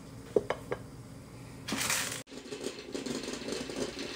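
A few light clinks of dishes, then, from about halfway through, a Grosche stovetop moka pot sputtering and gurgling on a lit gas burner as the brewed coffee comes up.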